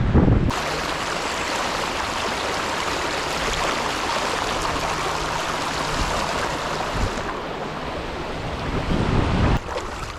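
Creek water rushing steadily close to the microphone. It cuts in abruptly about half a second in and cuts off just as abruptly near the end.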